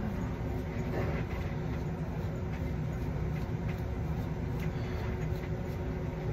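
Steady low background hum with a faint steady tone. Over it come faint light ticks and scratches of a plastic wide-tooth comb being worked through thick 4c hair.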